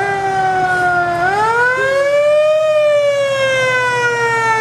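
Siren on the approaching 1956 Cadillac parade limousine, wailing as one pitched tone. It sags slightly, rises over about a second and a half a little after the start, then slowly falls in pitch.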